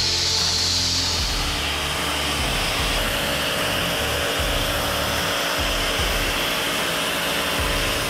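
Pressure washer jet spraying hard onto a foam-covered bare car floor pan: a steady, loud hiss of water.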